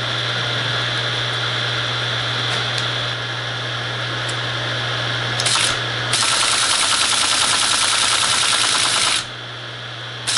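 Teletype ASR 33 running with its motor humming steadily. About six seconds in, the paper tape reader starts and the machine clatters rapidly for about three seconds, then stops, with a short burst right at the end. This is a first trial of the reader, promising but still needing adjustment.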